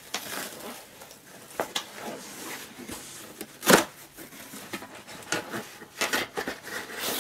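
A cardboard shipping box being handled and torn open by hand: scattered scrapes and rustles of cardboard, with one louder, brief tear a little past halfway.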